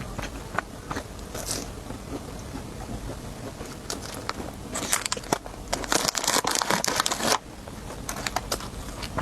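Close-up snack-eating sounds: scattered crisp crunches and clicks, with a loud, dense stretch of crackling for about two and a half seconds a little past the middle.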